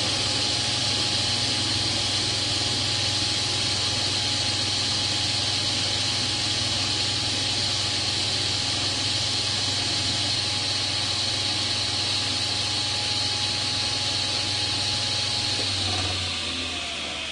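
Electric table saw running at full speed, a steady high whine over a low motor hum. Near the end it is switched off and begins to wind down, its whine falling in pitch.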